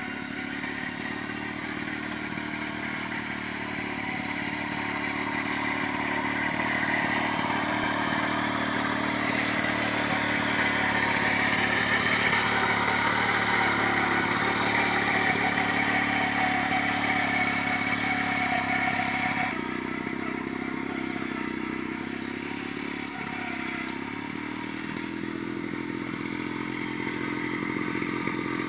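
Tratorito mini tiller's small engine running steadily under load as its rotary tines churn the soil, with a clattering rattle. It drops abruptly about twenty seconds in and grows louder again near the end.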